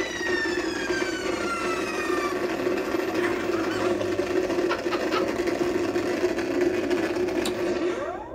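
Electronic synthesizer playing a dive-bomb sound effect. A falling whistle tone fades out in the first two seconds, leaving a steady, engine-like drone, and a short upward sweep comes near the end.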